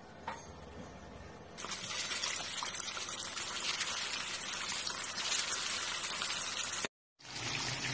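Whole mackerel frying in hot oil in a pan: a dense sizzle full of small crackles, coming in loud about a second and a half in and cutting out for a moment near the end.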